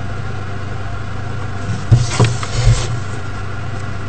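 Steady low hum in the background, with a few light knocks and a scrape a little after two seconds in as a plastic ruler is shifted and set down on paper for pencil drawing.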